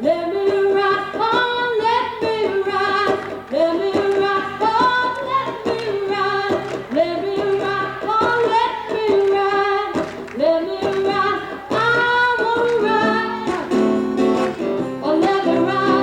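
A woman singing a melody of long held notes with vibrato, accompanied by a strummed and plucked acoustic guitar.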